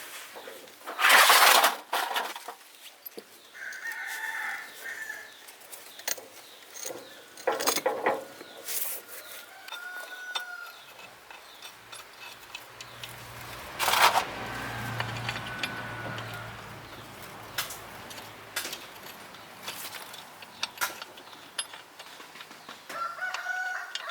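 Chickens clucking and a rooster crowing several times, mixed with a few short loud noisy bursts, the loudest about a second in, and a low hum for several seconds in the middle.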